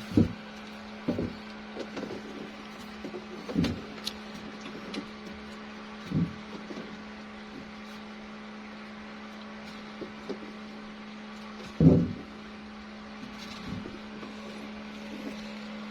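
A steady low hum with a few knocks over it, the loudest knock about twelve seconds in.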